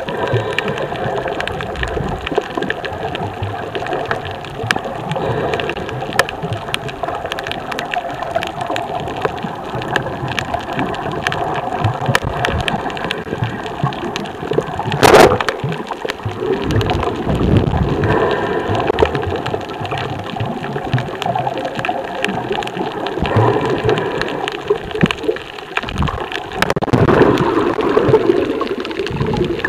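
Underwater camera audio: a steady muffled water noise full of dense crackling clicks, with one sharp knock about halfway through, the loudest sound.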